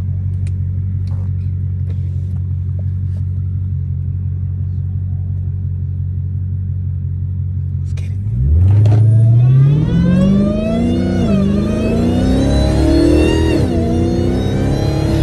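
Supercharged 6.2-litre Hemi V8 of a Dodge Hellcat idling with a steady low rumble. About eight seconds in it pulls hard at about half throttle: the engine note climbs with a high supercharger whine rising above it, and the pitch drops back twice at upshifts.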